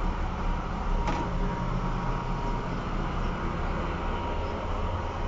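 Steady low drone of running heavy machinery, with one sharp knock about a second in.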